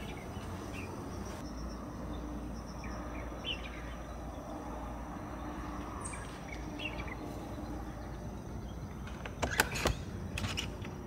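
Outdoor background with scattered short bird chirps, then a quick cluster of sharp clicks and knocks near the end as a door knob is grasped and turned on a wooden door.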